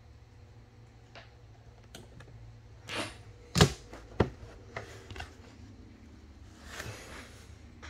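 Trading cards being handled on a table: a few sharp clicks and taps of a hard plastic card case being set down in its stand, the loudest two about half a second apart near the middle, with short rustles of card and wrapper.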